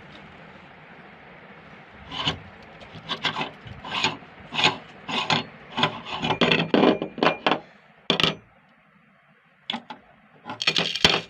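Meat grinder crunching and grinding marbles: a rapid run of sharp cracking, rasping strokes starting about two seconds in and lasting several seconds, then a few more near the end.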